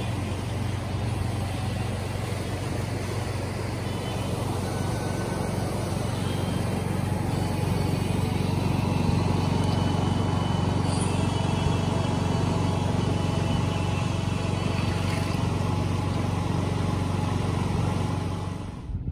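Steady rushing noise with a low rumble underneath, getting a little louder about a third of the way through, and cut off abruptly at the end.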